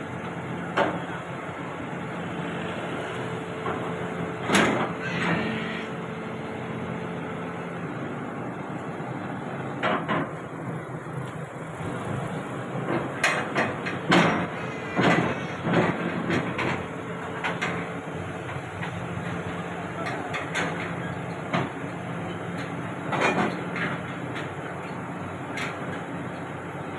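Heavy equipment diesel engine running steadily, with about a dozen sharp metal clanks and bangs at irregular intervals as the excavator is handled on the self-loader truck.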